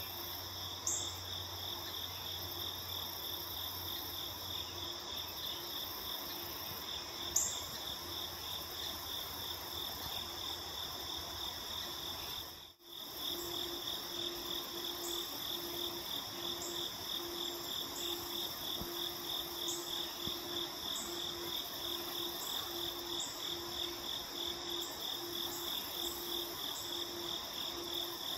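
Chorus of crickets and other insects: a steady pulsing trill with higher continuous insect drone, broken by a few short high chirps. A lower pulsing note joins after the sound briefly cuts out about halfway.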